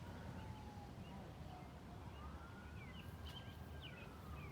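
Outdoor tornado warning siren wailing faintly, its pitch falling, rising again and then falling. Birds chirp in the second half, over a low wind rumble.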